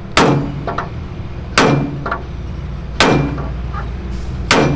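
Hammer blows on a hand rivet snap closing a hot steel rivet in a truck chassis frame: four heavy metallic strikes about a second and a half apart, each with a short ring.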